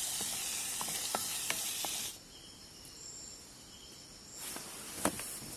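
Food sizzling in a pan: a steady hiss with scattered pops that cuts off abruptly about two seconds in. Faint steady insect chirring follows, then a few clicks and rustles near the end.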